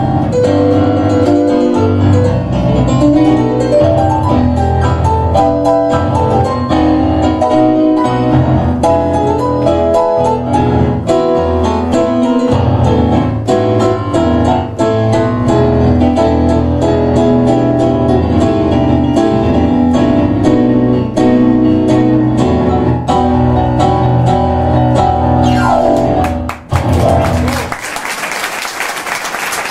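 Tango played as a duet on two digital pianos, one a Kawai MP6 stage piano. The music ends with a final chord a little before the end, followed by applause.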